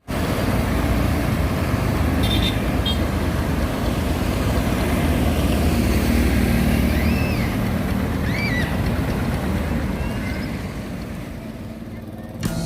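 Vehicle engines and road traffic running steadily, easing off somewhat near the end, with two short high rising-and-falling tones about seven and eight and a half seconds in.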